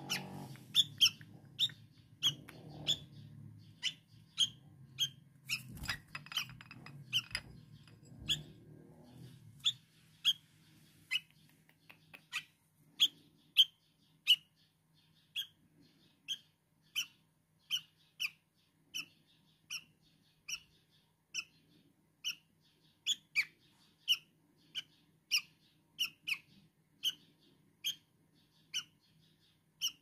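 A fledgling songbird gives short, high chirps over and over, about twice a second at first and then about once a second. These are the begging calls of a hungry young bird being hand-fed. A low rumble sits under the first third and stops about ten seconds in.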